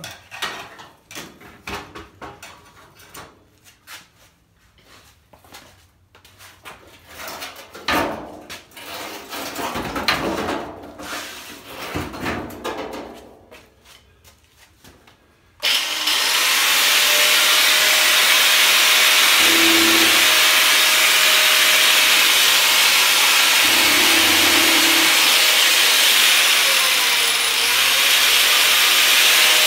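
Scattered knocks and clatter of metal being handled, then about halfway through an angle grinder starts suddenly and runs steadily as its cut-off wheel cuts through a rusty steel body panel. Its motor whine dips briefly under load near the end.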